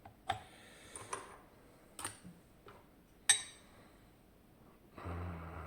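Small metal parts of a zIKON SK6 lock cylinder clicking and clinking as it is taken apart: four sharp clicks, the loudest about three seconds in, then a brief rustle of handling near the end.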